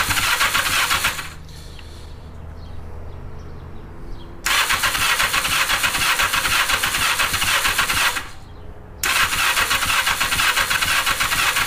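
Four-cylinder motorcycle engine turned over on its electric starter in three cranking bursts. The first ends about a second in, the next runs from about four and a half to eight seconds, and the last starts about nine seconds in. The engine is not starting: a spark plug is out of the cylinder and grounded to the head for a spark test.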